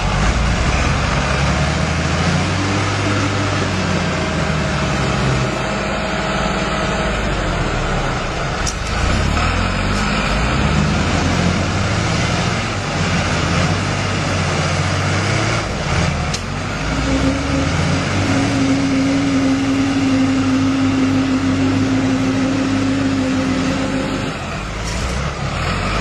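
Two diesel tractors, a red Fiat and a green Fendt, running hard under heavy load as they pull against each other in a tug-of-war, the engine pitch wavering up and down as they strain. A steady higher whine joins for several seconds in the second half.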